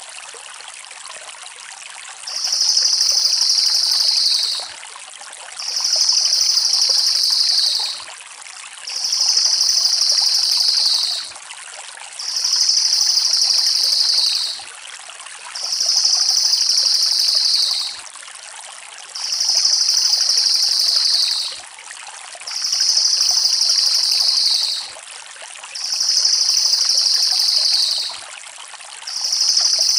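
Crested jay (cililin) giving its fast, dense rattling roll call, about two seconds long with a slight drop at the end, repeated about every three and a half seconds, nine times. A steady hiss runs underneath.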